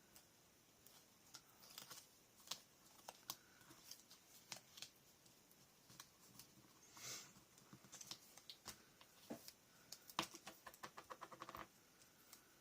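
Faint handling of paper and chipboard scrapbooking pieces: scattered light taps and clicks, a brief rustle about seven seconds in, and a quick run of small clicks near the end.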